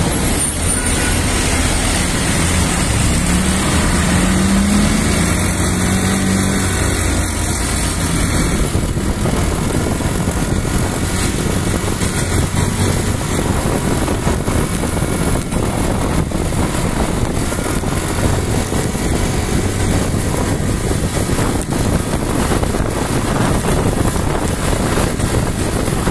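Motor scooter riding through city traffic: steady engine, road and rushing-air noise, with an engine note rising a few seconds in.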